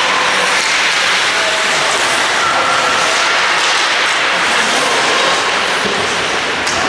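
Steady din of an ice hockey arena, with faint distant shouts now and then over it.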